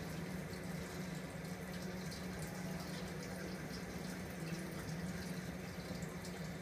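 Water running steadily in a saltwater reef aquarium, with a low steady hum underneath.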